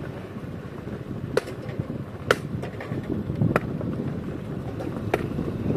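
Motor scooter riding along a rough lane, its engine and wind on the microphone making a steady rumble, with a few sharp knocks spread through it.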